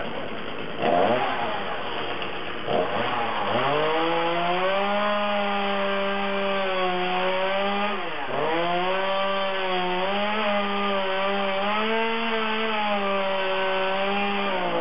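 Two-stroke chainsaw revving up twice, then held at high speed cutting wood, its pitch dipping briefly about eight seconds in.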